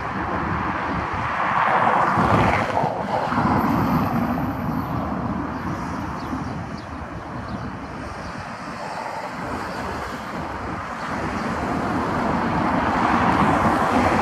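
Freight train of tank wagons hauled by a class 310 diesel locomotive rolling past, a steady rumble of wheels on rails that swells about two seconds in and again near the end.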